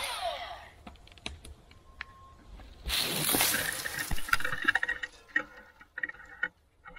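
Cordless electric chainsaw spinning down. About three seconds in comes a burst of crashing and crackling as the dead, rotten tree comes down, followed by scattered snaps and knocks of breaking branches.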